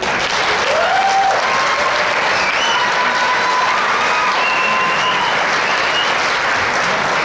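Audience applause that breaks out suddenly and goes on steadily.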